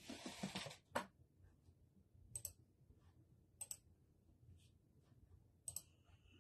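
A few faint, sharp clicks spaced one to two seconds apart, after a brief soft rustle at the start.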